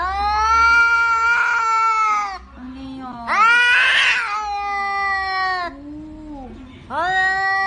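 Domestic cats yowling in long, drawn-out cries. Three loud yowls, the middle one rising highest, alternate with shorter, lower and quieter cries, and the last yowl is cut off.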